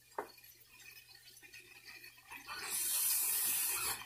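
Water being added to hot curry masala in a non-stick pan, hissing for about a second and a half. A light tap of the wooden spatula comes just before.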